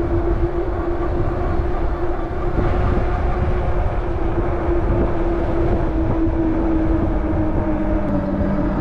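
Wind buffeting the microphone on a fat-tire electric bike at speed, over a steady whine from the bike's 750 W hub motor under pedal assist, cruising at its top assist speed of about 21 mph on level three. A second, lower steady tone joins near the end.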